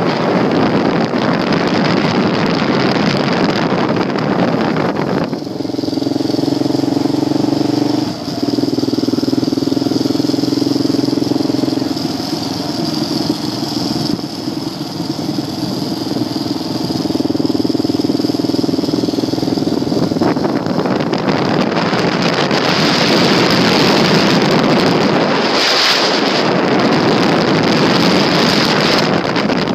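A vehicle travelling on a gravel road, heard from on board: loud wind on the microphone and road noise, with a steady engine hum coming through for a stretch in the middle.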